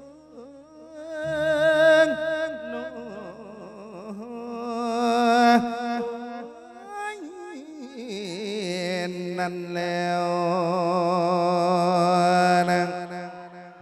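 A Buddhist monk singing an Isan-style thet lae (melodic sermon) into a microphone, with drawn-out wordless melismatic phrases and a wavering vibrato. In the second half he holds one long sustained note until just before the end.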